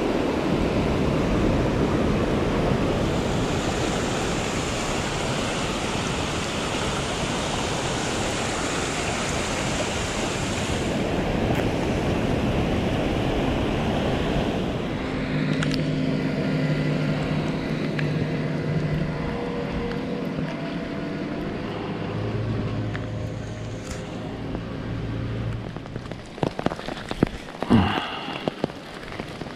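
Rain-swollen stream rushing over a rocky ford and cascading down, a loud, steady rush of water. Near the end it fades and a scatter of sharp taps and rustles takes over.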